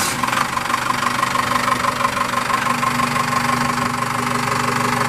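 5.9-litre Cummins diesel engine idling steadily.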